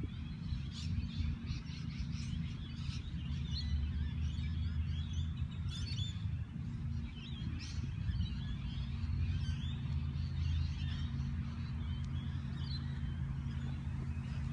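Birds chirping and calling with many short, quick chirps, over a steady low drone.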